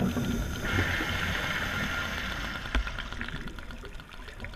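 Dolphin echolocation clicks recorded underwater: fast, dense trains of clicks over a hiss of water, with one louder click a little past halfway.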